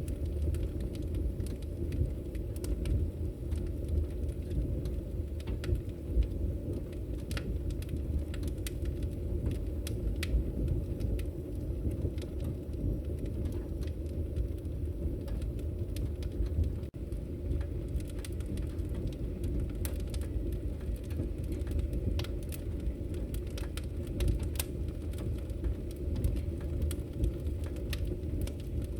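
Wood fire burning in a fireplace: a steady low rumble of flame with scattered sharp crackles and pops throughout.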